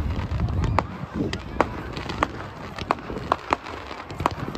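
Fireworks display: rockets launching and bursting overhead in an irregular string of sharp cracks and pops, two or three a second, over a low rumble that is heaviest in the first second.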